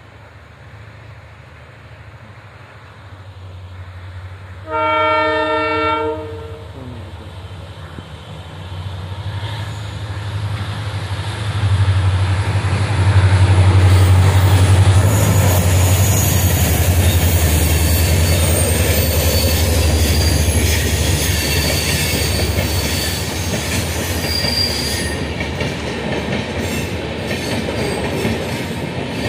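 WDP-4D diesel locomotive sounding one horn blast of about a second and a half, then its deep engine rumble building as it runs past. The passenger coaches follow, rolling by with wheel clatter and a thin, high wheel squeal.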